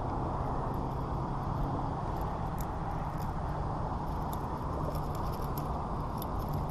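A steady low rumble with a faint hum, with small clicks and rattles in the second half as the small hooked wiper flops and swings on the Rooster Tail spinner's treble hook.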